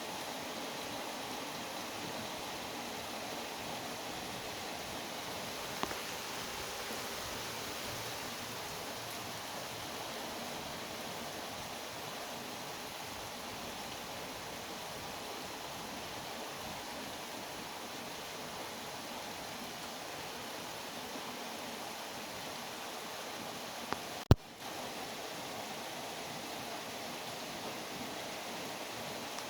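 Steady rainfall, an even hiss of rain. Two sharp clicks break through, a small one about six seconds in and a louder one about 24 seconds in, the second followed by a brief drop-out.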